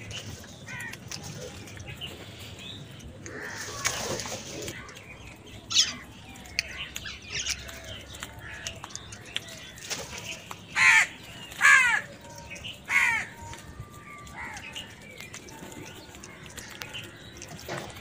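House crows cawing while they feed: short harsh caws from several birds, the loudest three coming close together about eleven to thirteen seconds in, with fainter calls between.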